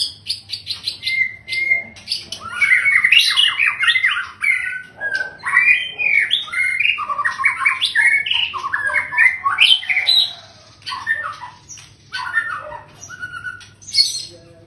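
Male white-rumped shama singing a long, varied song: rapid phrases of sliding whistles mixed with clicking notes, broken by brief pauses.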